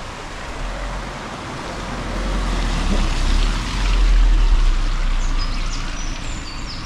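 A car passing close on a wet road: tyre hiss and engine rumble swell to a peak about four seconds in, then fade, over the rush of a stream. Birds chirp near the end.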